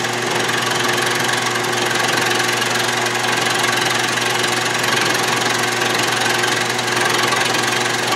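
Atlas/Craftsman 12-inch lathe running at about 600–700 RPM with a milling attachment, its half-inch end mill cutting a flat into half-inch round stock without cutting oil: a steady machine run with cutting noise over it, a little louder from about half a second in.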